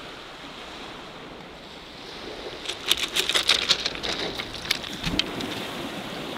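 Gentle wash of small waves on the shore, with some wind. A little under halfway through, a run of quick, light clicks and rattles comes in for about two seconds.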